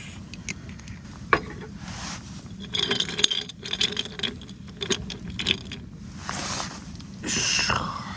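Small metal clinks and scrapes of camp cookware and utensils being handled, with a few sharp knocks, the loudest about a second in and again about three seconds in, and short scraping stretches in between.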